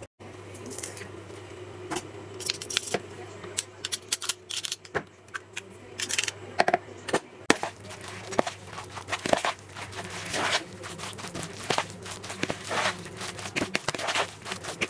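Fork mixing grated zucchini batter in a plastic bowl: a run of quick, irregular clicks and scrapes against the bowl, coming thicker and faster from about halfway through. A faint steady low hum lies underneath.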